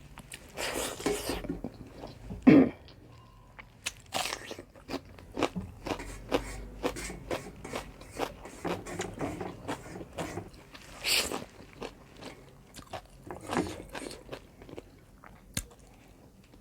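Close-up mukbang eating sounds: a person chewing and crunching mouthfuls of pork curry with rice, with many short sharp mouth clicks and crackles. The loudest is a single brief sound about two and a half seconds in.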